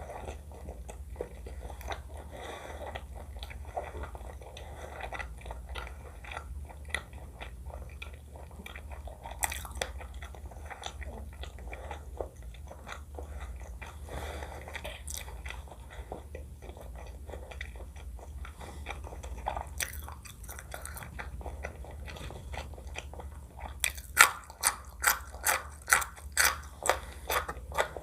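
Close-miked eating: soft, wet chewing of food throughout, then near the end a run of loud, sharp crunches at about three a second.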